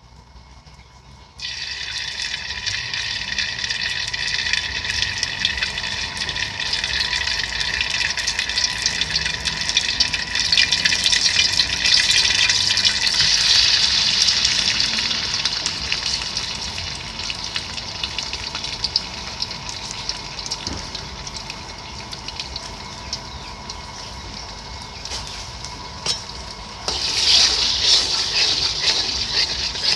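Food sizzling and crackling in hot cooking oil in a pan. The sizzle starts suddenly about a second and a half in as something goes into the hot oil, slowly dies down, then flares up again near the end.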